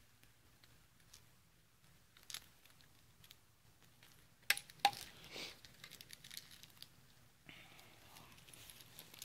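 Faint handling noises: a few light clicks and knocks and a short rustle as the car stereo head unit and its packaging are handled, over a steady low hum.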